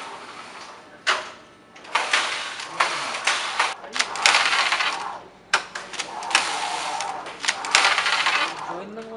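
Flat knitting machine carriage sliding back and forth across the needle bed: a series of noisy sweeps, each under a second or so, with sharp clicks between strokes.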